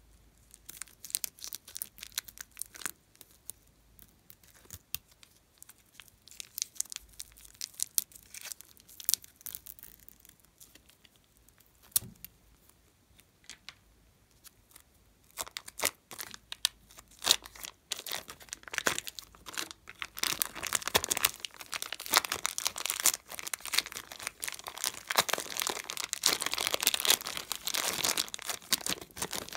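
Thin clear plastic piping bag crinkling and tearing as it is pulled and peeled away from soft clay slime by hand. It starts as scattered small crackles, then becomes a dense, continuous crinkling from about halfway.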